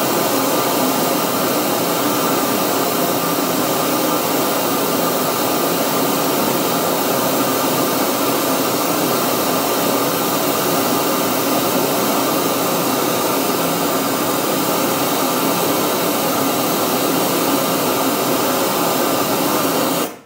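Pink noise test signal played loud through a Truesound full-range PA speaker, high-passed at 111 Hz so there is almost nothing in the deep bass; it is steady and cuts off suddenly just before the end.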